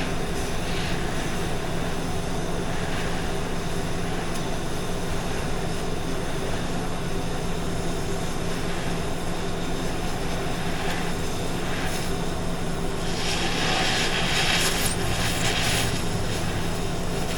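Oxy-fuel cutting torch running with a steady hissing roar as it skims excess metal off an old wheel rim, its cutting oxygen kept turned low for a light touch. The hiss grows louder and sharper for a few seconds near the end.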